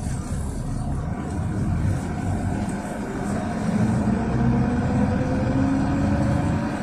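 NefAZ 5299 city bus under way, heard from inside the passenger cabin: its KAMAZ 740.62 V8 diesel pulls steadily with road rumble, the engine note climbing through the middle as the bus accelerates in gear.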